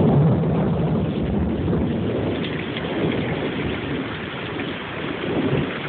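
Rain pouring steadily with a low rumble of thunder that is loudest at the start and slowly fades away.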